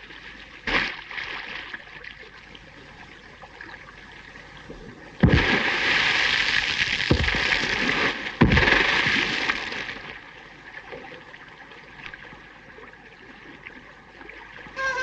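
Two sudden blasts in the water about three seconds apart, each followed by a rush of falling spray.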